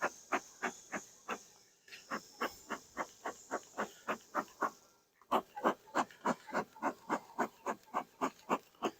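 Bee brush sweeping bees off a honey frame: quick, rhythmic swishing strokes, about three a second, in three runs with short pauses between them.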